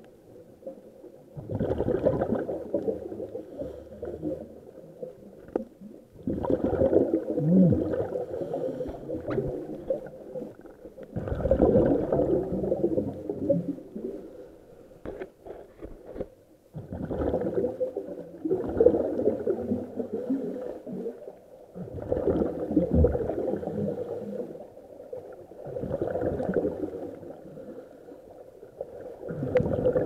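Underwater scuba breathing through a regulator: bursts of exhaled bubbles gurgling and rumbling past the microphone roughly every five seconds, with quieter gaps for each inhale.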